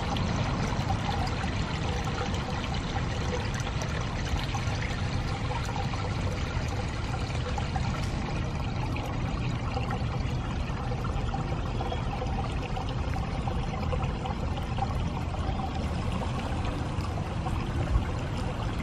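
Water running and splashing steadily into the koi pond, a constant trickle.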